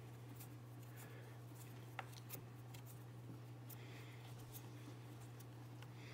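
Faint ticks and one sharper click about two seconds in from a T-handle hex key turning screws into the battery plate of an ice auger power head, over a steady low hum.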